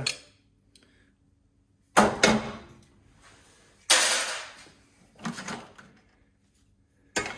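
Knocks and clatter of parts of a water heater being handled and pried apart during the teardown. Two louder knocks come about two and four seconds in, each dying away over a moment, then a fainter one and a last knock near the end.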